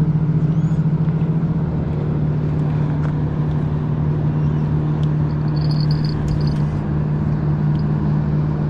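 A motor engine running steadily with an even low hum, pulsing slightly for the first couple of seconds. A few faint high chirps come in about six seconds in.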